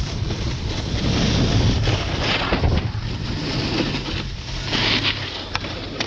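Wind buffeting the microphone while snowboarding, with a low rumble under it, and the board's edge scraping and hissing over packed snow in a few surges.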